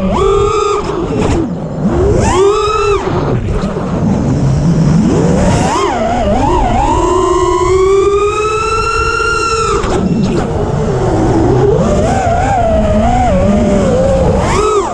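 Brushless motors of an Armattan Rooster FPV racing quadcopter whining in flight, their pitch swooping up and down sharply with throttle changes. Past the middle a long climbing whine holds for a few seconds, then cuts off suddenly.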